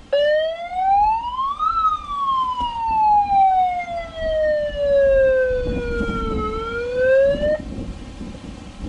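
A siren wailing once: its pitch climbs for almost two seconds, sinks slowly for about five, then climbs briefly again before it cuts off. A low rumble sits under it from about six seconds in.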